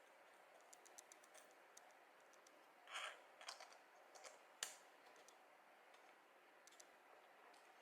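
Faint, scattered small clicks and taps of hard plastic being handled, with a short scrape about three seconds in and one sharper click a little after the middle.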